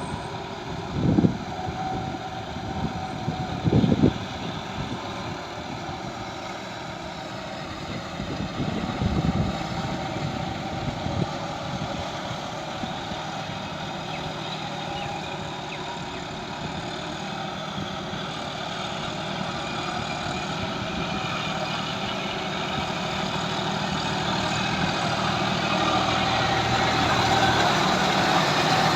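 John Deere tractor's diesel engine running steadily while ploughing through mud, growing gradually louder over the last part. A few short low thumps stand out in the first ten seconds.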